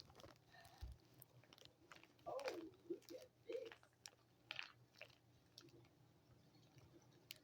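Faint, scattered crinkles and small clicks of plastic packaging being handled, with a faint voice murmuring for a moment around the middle.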